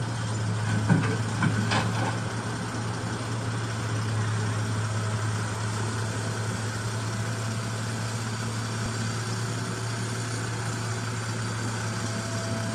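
Construction machine's engine idling steadily with a low, even hum, with a few short knocks in the first two seconds.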